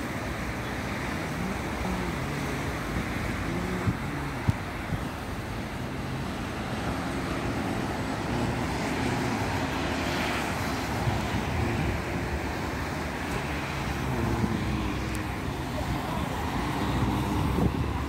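City road traffic noise, a steady wash of passing cars, with wind buffeting the microphone and a couple of sharp clicks about four seconds in.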